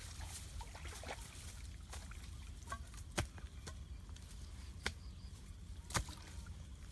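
A hoe chopping into a muddy earth bank: three sharp strikes, starting about three seconds in, a second or so apart, over the sloshing of muddy water around wading legs.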